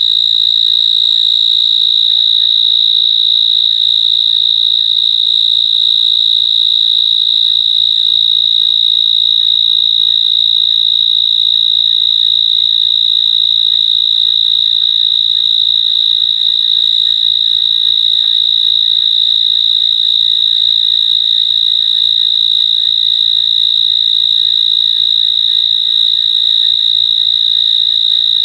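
A cricket trilling without a break: one loud, steady, high-pitched tone.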